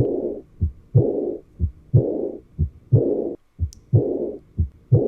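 Recorded heart sounds at about one beat a second, each beat a pair of short low thuds with a rushing murmur right after the second one. This is a regurgitant diastolic murmur, the sign of insufficient (leaking) semilunar valves.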